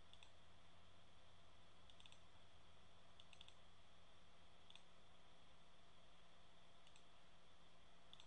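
Faint computer mouse clicks, single and in quick pairs or triples, spaced a second or more apart, over near silence with a faint steady low hum.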